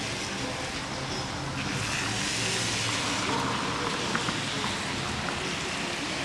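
Cars driving past on a rain-wet road, their tyres hissing on the wet surface; the hiss grows louder about two seconds in.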